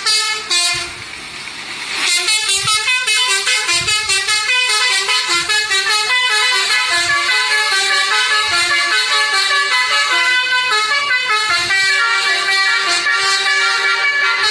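Basuri multi-tone musical horn playing a fast melody, its pitch changing every fraction of a second. It starts after a short hiss about a second in.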